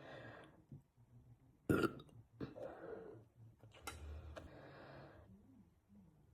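A man burping after drinking Coke: one short, loud burp nearly two seconds in, then two longer, quieter burps.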